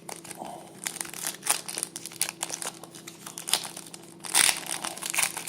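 Foil trading-card pack wrapper crinkling and tearing as it is opened, a dense run of crackles with a louder flurry about four seconds in.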